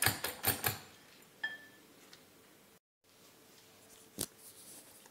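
Wire hand whisk beating egg whites and sugar in a glass bowl: quick, rhythmic clicks of the wires against the glass, about four or five a second, which stop under a second in. After that it is quiet apart from a single sharp clink about four seconds in.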